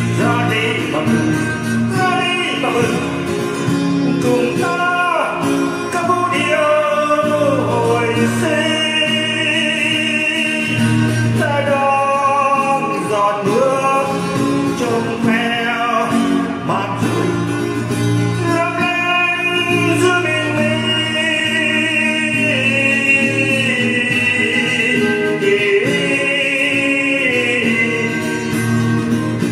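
Male voice singing a song over acoustic guitar, holding long notes with a slight waver.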